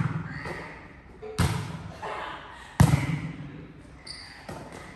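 A volleyball being struck back and forth between players: three sharp smacks about a second and a half apart, each echoing under the hall's roof, and a fainter hit near the end.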